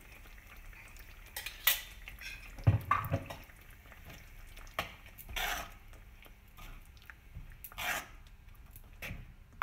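A metal spoon stirring a thick paste into gravy in a metal pan, with scattered scrapes and clinks against the pan.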